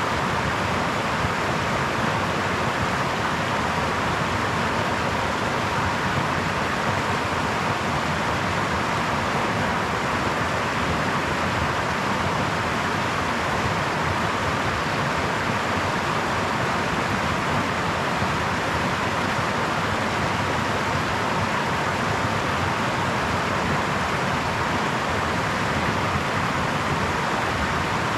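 Brook flowing: a steady, even rush of running water that doesn't change.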